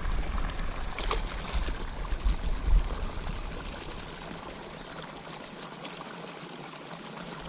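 Water pouring steadily into a pond from an inflow, with a low rumble on the microphone that fades out about halfway through and faint, short, high chirps repeating every half second or so.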